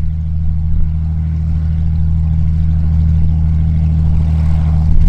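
Cessna 175C Skylark's single piston engine and propeller running steadily at taxi power, a low even drone.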